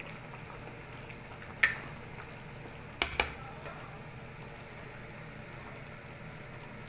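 Aluminium pot of sinigang (pork and squash soup) bubbling at a steady boil as a plastic ladle stirs it. A sharp clink comes about one and a half seconds in, and two quick clinks about three seconds in, as the ladle knocks against the metal pot.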